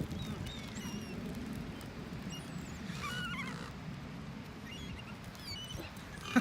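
Birds calling: scattered short, downward-sliding chirps, with a denser cluster of calls about three seconds in, over a steady low background noise.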